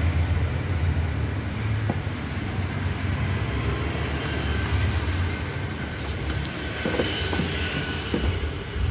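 Steady low rumble, with a few light clicks near the end as the plastic-and-aluminium headlight ballast module is pushed against the headlight housing.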